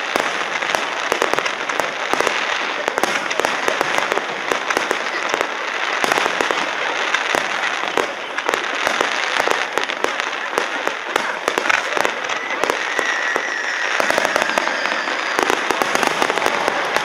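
Aerial fireworks shells bursting one after another in a dense run of bangs and crackling.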